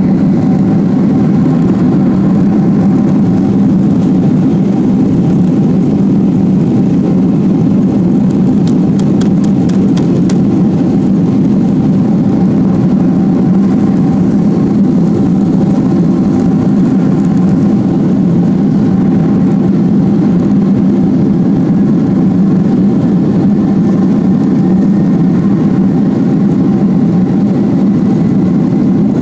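Jet airliner cabin noise during taxi: the engines' steady low hum with a faint high whine, even in loudness throughout. A few faint ticks come about nine to ten seconds in.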